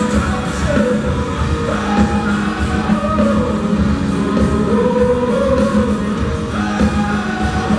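Hard rock band playing live, recorded from the audience: a male lead singer's wavering, held notes over electric guitar, bass and drums.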